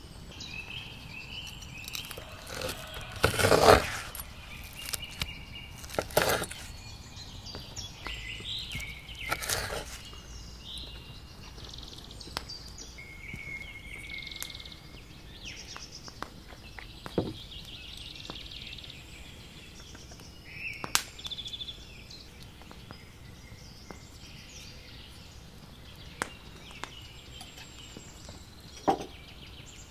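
Spring birdsong: several small birds chirping and singing on and off. A handful of short knocks and clatters break in, the loudest a few seconds in.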